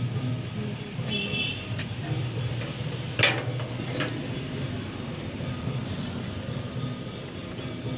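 Steady low background rumble, broken by a sharp bang about three seconds in and a smaller crack about a second later.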